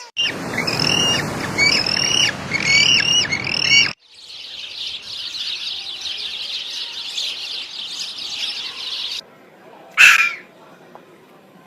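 Birds calling, in three spliced bits. First comes a quickly repeated call of rising-and-falling notes over a steady rushing noise. Next is about five seconds of dense high-pitched chatter that cuts off suddenly. Near the end there is a single loud, harsh call.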